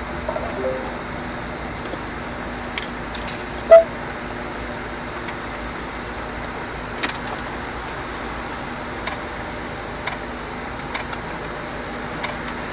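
Steady hum inside a Mini's cabin, with a short, loud beep a little under four seconds in and a few faint taps later on.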